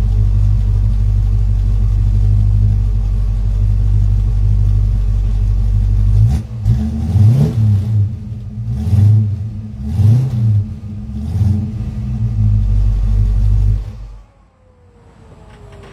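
A 1941 Ford pickup resto-mod's 383 stroker V8 idling with a steady, heavy rumble, then revved in several short blips starting about six seconds in. The engine cuts off near the end.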